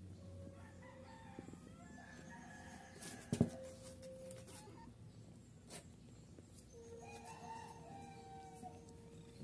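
Faint rooster crowing, with a long held call in the last few seconds. A short sharp knock about three and a half seconds in.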